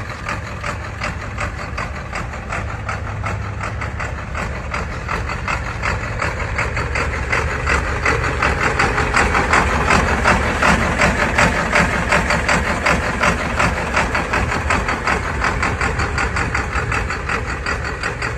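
Heavily modified Ford 8N tractor's swapped-in 500+ hp engine idling through its twin upright exhaust stacks, a steady, evenly pulsing idle that grows a little louder around the middle.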